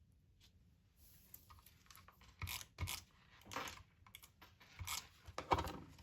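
Paper being handled and slid on a craft paper trimmer: several short rustling, scraping strokes with a few light knocks, starting about two seconds in.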